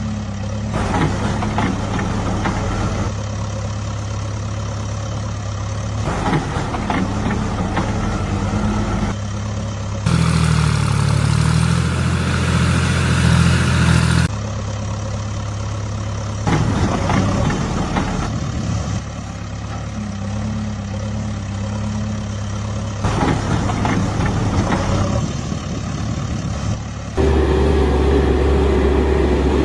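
Heavy diesel engines of a JCB 5CX backhoe loader and Tata trucks idling and running under load. The sound changes abruptly every few seconds, and about 27 seconds in a louder, deeper engine takes over.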